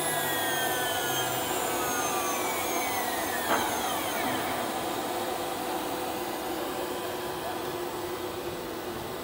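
Aluminium-profile CNC machining centre running with a steady whine. Several of its tones glide down in pitch over the first few seconds, and there is one sharp click about three and a half seconds in.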